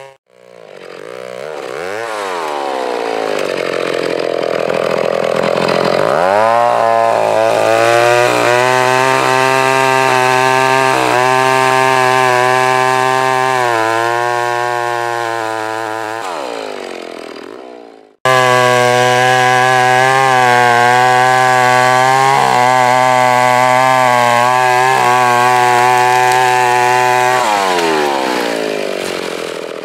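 Two-stroke gas chainsaw felling a tree. The engine blips up and down, then rises to full throttle about six seconds in and runs steadily under load through the cut before winding down. After an abrupt break it runs at full throttle again and slows back down near the end as the tree starts to go over.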